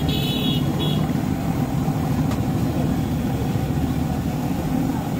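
Steady low rumble of roadside traffic, with a brief shrill, pitched tone in the first second.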